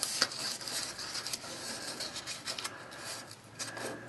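A cardboard template being handled and slid about, rubbing and scraping, with a few sharp taps.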